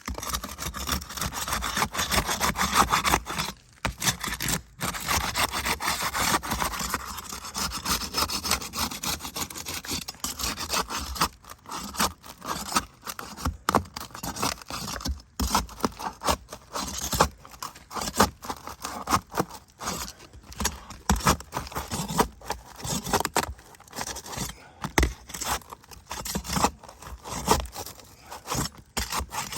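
Irregular scraping and rubbing, starting and stopping in short spells with frequent sharp peaks.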